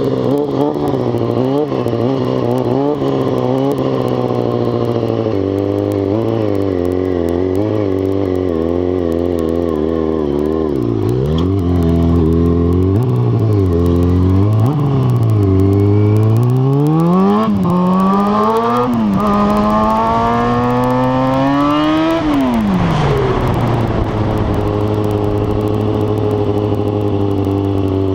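Stunt motorcycle's engine running under constant throttle work, revving up and down again and again. About two-thirds of the way through the pitch climbs steadily for several seconds, then drops sharply and settles to a steady lower note.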